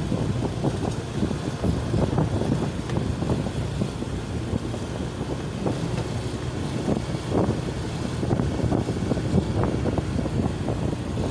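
Motorcycle running at low speed, a steady engine rumble with road noise and short irregular rustles on the microphone.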